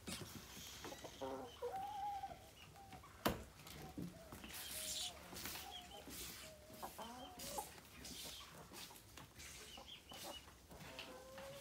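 Chickens clucking with short, soft pitched calls, on and off, over a faint steady hiss of rain. There is one sharp knock about three seconds in.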